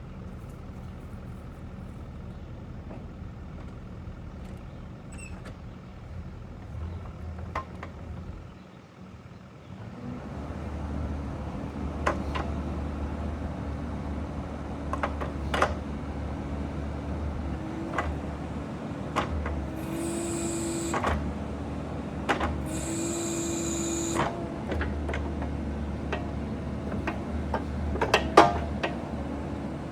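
Bobcat E42 mini excavator's diesel engine running, then working harder about a third of the way in as the boom, arm and bucket hydraulics are put through their motions in full-power mode. Scattered metal clanks, and twice a short hissy whine of about a second from the hydraulics under load.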